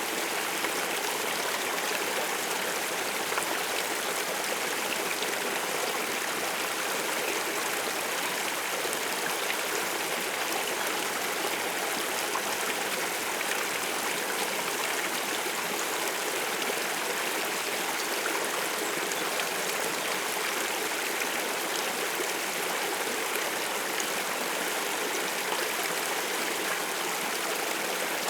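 Stream of running water: a steady, even rush of flowing water with no pauses or changes.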